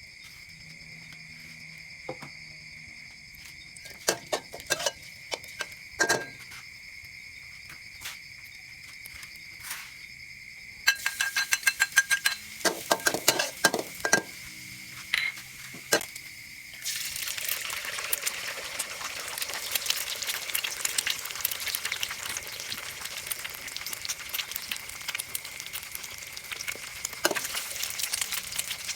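Kitchen utensils clicking and clinking against a pan and dishes, quickening into a rapid run of clicks, then about halfway through a steady sizzle of food frying in a hot pan.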